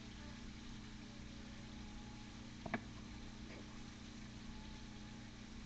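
Faint room tone: a steady low hum with one sharp click nearly three seconds in.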